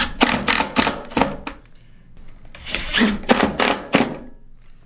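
Screw gun with a hex nut driver driving sharp-pointed, EPDM-washer hex-head screws through a metal roof panel's pipe-boot flange into the wood deck below. It comes in two bursts of rapid clicking, each about a second and a half long.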